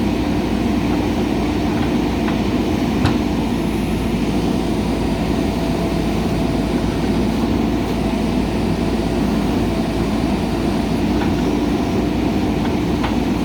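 JCB 3DX backhoe loader's diesel engine running steadily, with a light knock about three seconds in and another near the end.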